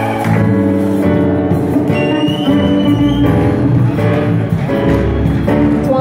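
Live gospel praise band playing an instrumental passage, with guitar and held chords changing every second or so.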